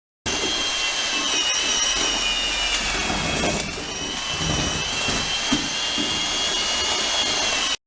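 Keyang D-23 electric hand-held mortar mixer running with a steady high motor whine, mixing ready-mix mortar. About three and a half seconds in, the whine sags briefly in pitch and level, as if under heavier load, then recovers.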